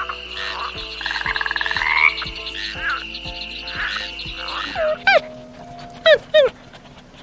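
Frogs croaking, with a rapid pulsed trill about a second in over a steady high chorus. Near the end come a few sharp calls that fall in pitch.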